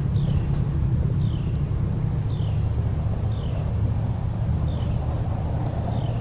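A bird repeating a short falling chirp about once a second, six times, over a steady low rumble and a thin, steady high-pitched tone.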